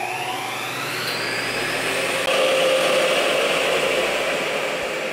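United Air Specialists fume extractor's blower motor spinning up just after being switched on: a whine rising in pitch over the first two seconds, then settling into a steady whir with rushing air through the extraction hood.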